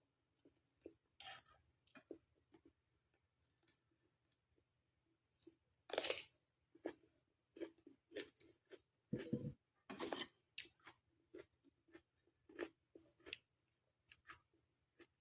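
Close-miked eating from a bowl of bakso meatball soup: soft chewing and scattered small clicks, with a few louder noisy sounds about six and ten seconds in.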